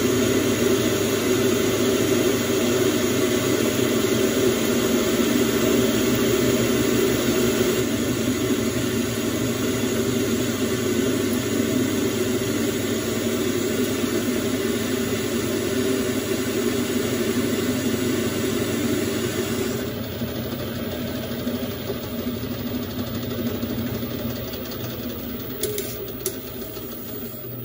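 Metal lathe running with its cutting tool taking a turning cut along a metal bar, a steady machining noise. About twenty seconds in, the hissy cutting sound drops away and the lathe keeps spinning more quietly.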